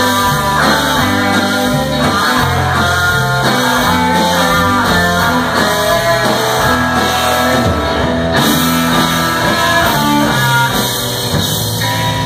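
Live rock band playing: electric guitars with bass and drums, loud and dense, easing off slightly near the end.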